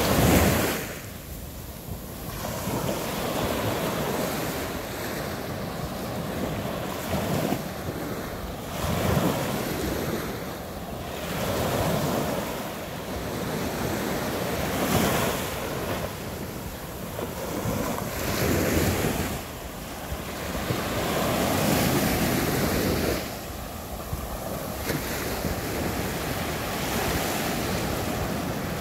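Waves washing up on the beach at Kapalua Bay, swelling and falling back every few seconds, with wind buffeting the microphone.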